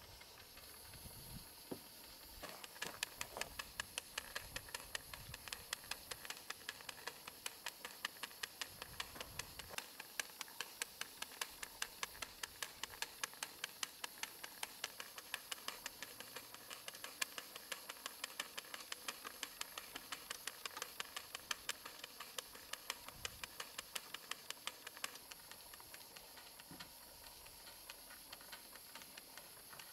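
Stuart Models beam engine running on steam, its exhaust beating in a quick, even rhythm of about four to five puffs a second over a steady hiss. The beats grow weaker near the end.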